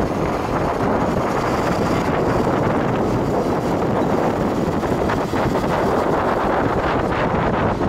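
Steady wind rushing over the microphone on a moving open-roof safari vehicle, with the vehicle's running noise underneath.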